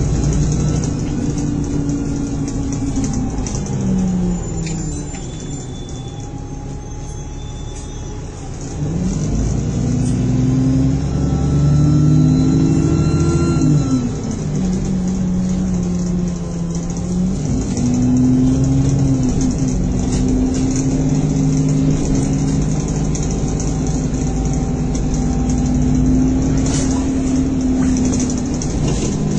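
Bus engine and drivetrain heard from inside the passenger saloon while under way. The engine note climbs and drops back in steps as the bus changes up. It eases off and quietens about four seconds in, pulls away again after about eight seconds, and then holds a fairly steady cruise.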